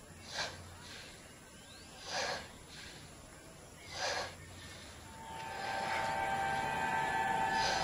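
Three heavy breaths about two seconds apart, then a steady music drone comes in about five seconds in.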